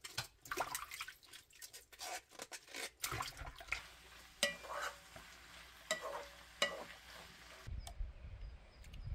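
Cooking sounds: quick clicks and clatter of vegetables being handled, then a wooden spatula stirring vegetables and pork in a frying pan, with three sharper ringing knocks against the pan in the middle. Near the end the clatter gives way to a low rumble.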